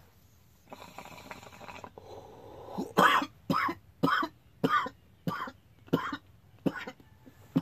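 Water bong bubbling as smoke is drawn through it, then a coughing fit after the hit: about eight hard coughs in a row, starting about three seconds in.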